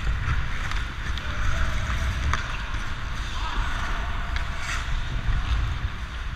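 Hockey skate blades scraping and carving on the ice, under a steady wind rumble on the skating player's action-camera microphone, with a few sharp clicks.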